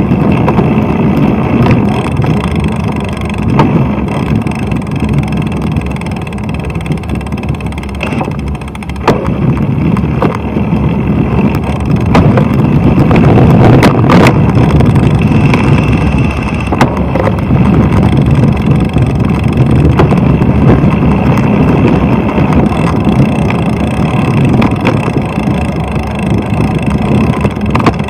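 Steady low rumble of riding a bicycle through slow car traffic: wind and road noise on a bike-mounted camera, with car engines around it. A few sharp knocks, and a quieter spell about a third of the way in.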